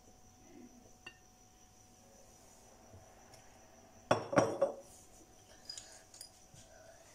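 Drinking glasses knocking and clinking against each other and a tabletop: a quick, loud cluster of knocks about four seconds in, with a faint tick before it and a few lighter clinks after.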